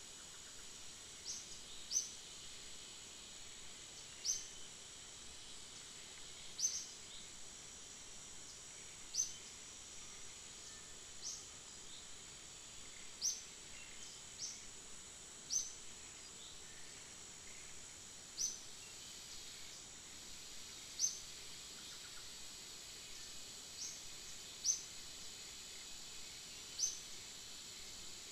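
Steady high-pitched insect drone, with short high chirps every second or two.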